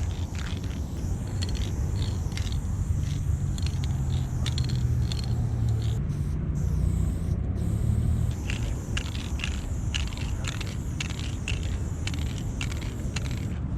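Aerosol spray paint can being shaken: the mixing ball rattles in quick runs of clicks near the start and again in the second half. A low steady rumble sits under it, strongest in the middle.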